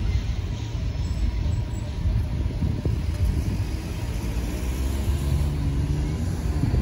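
Cars driving across the railroad crossing over a steady low rumble, with one engine rising in pitch as it accelerates over the tracks about halfway through.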